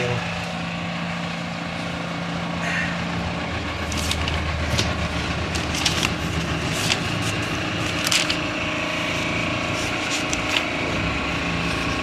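Steady low machinery hum whose pitch drops about three and a half seconds in. From about four seconds on come paper rustles and short clicks as the pages of a ring-binder wiring manual are handled and turned.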